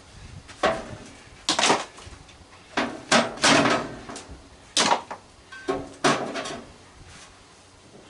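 Irregular knocks and clatters of metal parts of an old microwave being pulled loose and handled, about a dozen in the first six seconds, then quieter.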